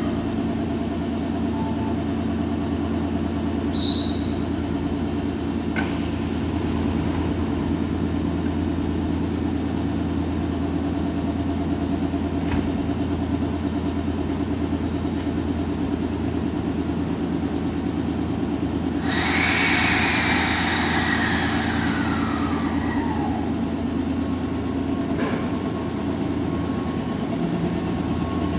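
Kotoden 600-series electric train, a former Nagoya subway car, standing at a platform with a steady low electrical hum. About two-thirds through, a rush of hissing air with a whistle that falls in pitch over a few seconds, and the train begins to pull away near the end.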